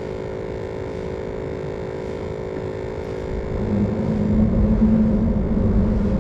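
Steady hum, joined about three and a half seconds in by a low rumble that swells and stays loud: a vehicle crossing the bridge overhead.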